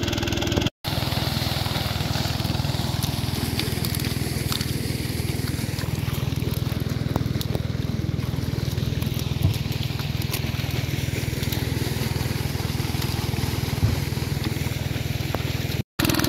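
Small engine running steadily at an even idle-like pitch. It drops out for a moment about a second in and again near the end.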